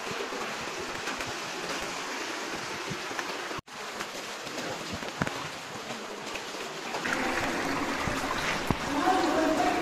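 Cave stream water rushing and splashing around people wading through it, with scattered splashes of feet in the water. The sound briefly cuts out about a third of the way through, and a voice is heard faintly near the end.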